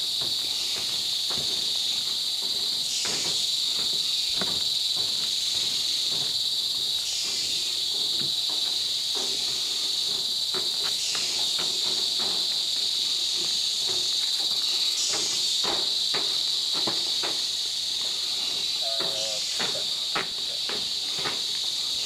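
Rainforest insect chorus: a steady high-pitched drone that swells about every four seconds. Footsteps on the boardwalk sound over it.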